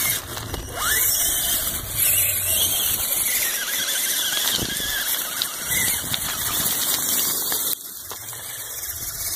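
Tamiya Clodbuster RC truck's twin electric motors and gearboxes whining at high pitch as it is driven through mud, rising and falling with the throttle and dropping off sharply about eight seconds in.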